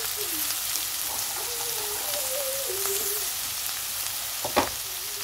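Beef, tomato and chickpeas sizzling steadily in a frying pan, with one sharp knock near the end.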